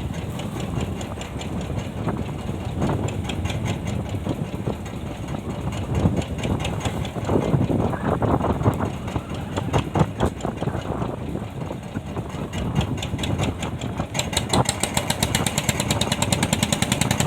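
Fishing boat's engine running steadily, with a fast, even knocking that gets louder and sharper in the last few seconds.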